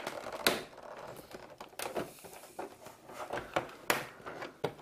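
Scattered sharp clicks and light scraping of hard plastic as a cover panel on an all-in-one computer is pried at and handled.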